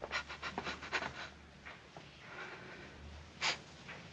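A man's quiet, quick sniffs and snorting breaths: a run of short sniffs at the start and one sharper snort about three and a half seconds in.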